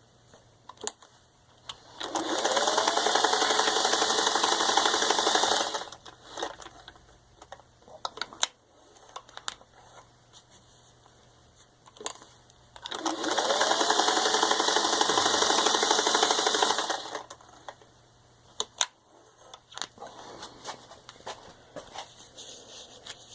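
A 1959 Singer 404A sewing machine stitching through four layers of thin leather, run in two bursts of about four seconds each, with a whine rising as each burst starts. Scattered clicks from handling the machine and the work come between the runs.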